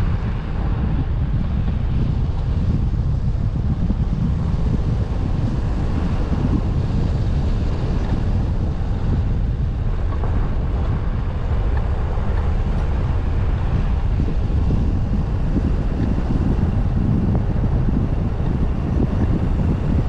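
Steady low rumble of a car driving along a road, mixed with wind buffeting the microphone.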